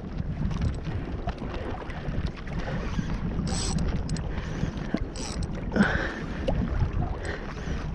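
Wind buffeting the microphone over small waves slapping a kayak's hull. Two short hissing splashes come about three and a half and five seconds in, with a few light knocks.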